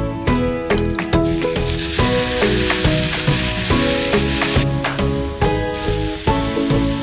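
Liquid, the coconut vinegar, sizzling as it hits a hot pan of fish and vegetables, starting about a second in and cutting off suddenly around four and a half seconds, over background instrumental music.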